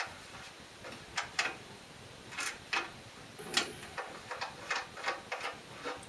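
Small, irregular clicks and taps, about a dozen, as a heater's ground wire is fitted and tightened onto a car battery terminal.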